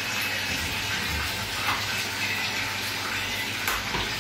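Steady hiss, with a couple of light knocks of a knife on a wooden cutting board as chicken fillet is sliced.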